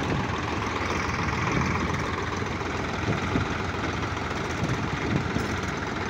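Swaraj 735 FE tractor's three-cylinder diesel engine running steadily, the tractor bogged down in mud.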